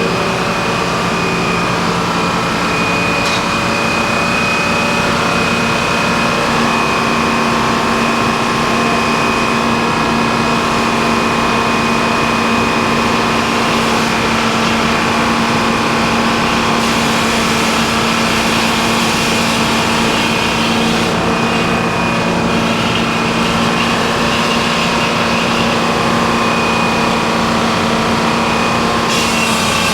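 Sawmill machinery running steadily, an engine drone with constant pitch and level.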